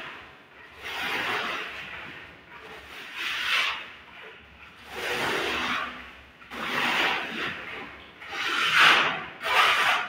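Plastering trowel scraping over cement render on a wall in about six separate sweeping strokes, each roughly a second long.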